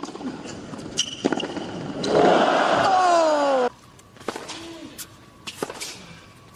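Tennis ball struck by rackets in a rally, with a few sharp hits. A loud drawn-out 'ooh' of voices, falling in pitch, cuts off suddenly about three and a half seconds in. Quieter racket hits of a second rally follow.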